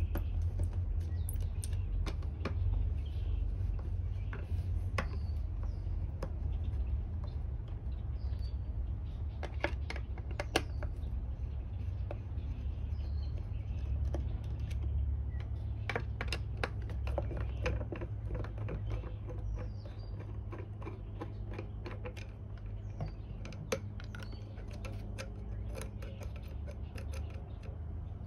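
Irregular small clicks and ticks of a Phillips screwdriver backing out the screws on the top of a water purifier unit while its parts are handled, over a steady low hum.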